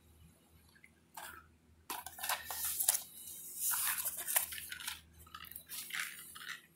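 Clinking and rustling from handling boxes of .357 cartridges: a quick run of sharp clatters from about a second in until near the end.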